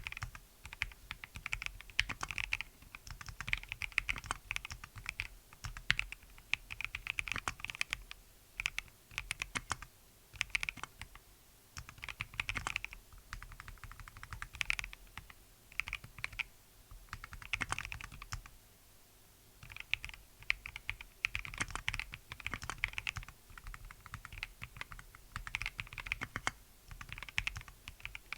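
Typing on a Mode Designs Envoy mechanical keyboard with Drop MT3 Jasmine keycaps and Melgeek Kailh custom plastic-housing switches: bursts of rapid keystrokes with short pauses between runs, including a pause of about a second two-thirds of the way through.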